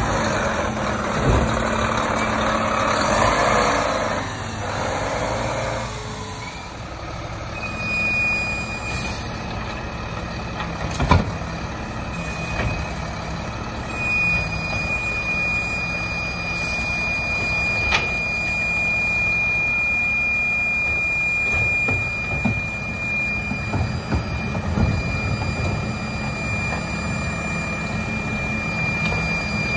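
Mack LEU garbage truck with a McNeilus Autoreach automated side-loader arm, its engine running steadily under a rushing hiss for the first six seconds. A few sharp bangs come through the middle, and a thin steady high whine runs through the second half.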